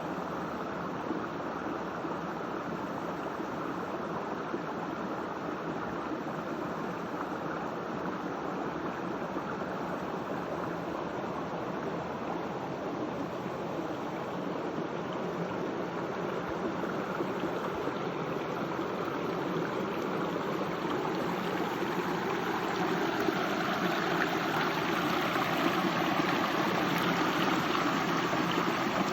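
Stream running: a steady rush of flowing water that grows a little louder over the last third.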